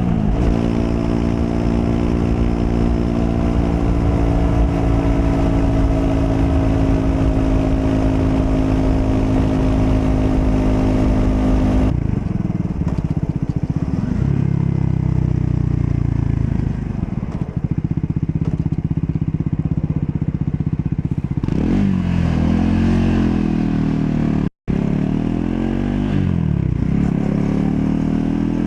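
Triumph Scrambler 400 X's single-cylinder engine running at a steady pitch for about the first twelve seconds. Then, after an abrupt change, its revs rise and fall again and again as the throttle is opened and closed. The sound cuts out for a split second near the end.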